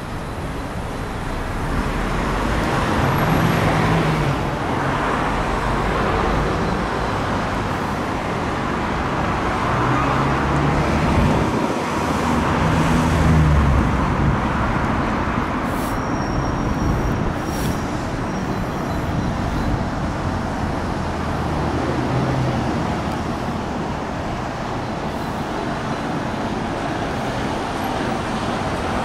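Road traffic passing steadily: a continuous wash of engine and tyre noise, with vehicle engines swelling and fading now and then.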